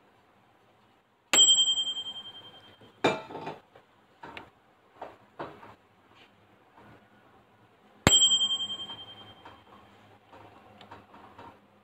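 Microwave oven's ding, struck twice about seven seconds apart, each a bright bell tone ringing out over about a second. Between the two dings there is a knock about three seconds in, then a few light clicks.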